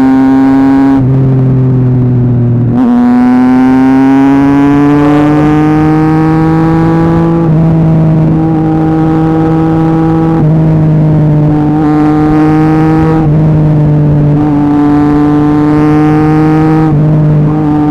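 Triumph Street Triple 675's inline three-cylinder engine running loud with no exhaust silencer, heard from the saddle. It dips briefly about a second in, climbs in pitch under acceleration from about three seconds in, then holds a steady note that thins and fills out again several times as the throttle changes.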